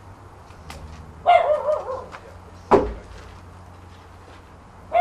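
A dog barking twice, the first bark drawn out and wavering, the second short and sharp, over a steady low hum.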